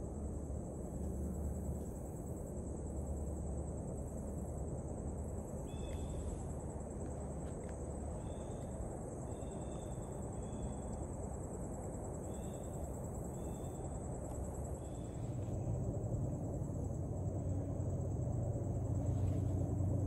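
Steady high-pitched drone of a summer insect chorus, with a few short chirps in the middle and a low rumble that grows louder near the end.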